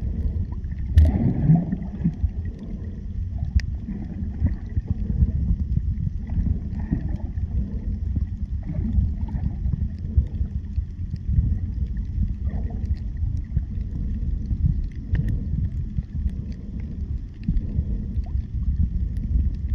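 Underwater water noise picked up by a submerged camera: a steady, dull low rumble with soft gurgles every few seconds, one louder rising gurgle about a second in.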